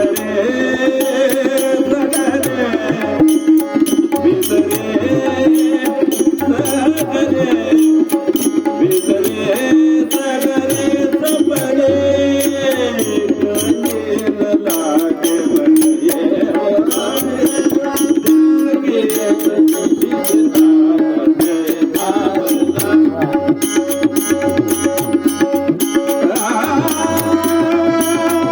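Marathi devotional abhang music: a melodic line with a hand-drum and percussion accompaniment keeping a steady rhythm.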